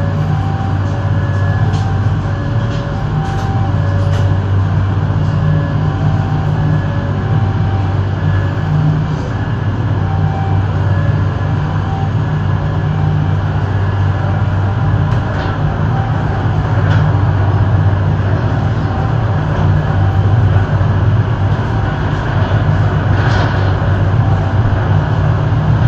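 Diesel-hauled Argo Cheribon passenger train under way as it pulls out of the station, heard from aboard as a steady low rumble with a few faint clicks. A faint repeating two-note tone sounds through the first half, and the rumble grows a little louder past the middle as the train gathers speed.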